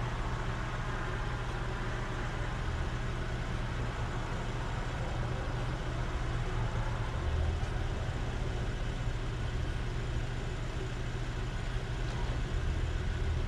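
A car engine idling with a steady low hum.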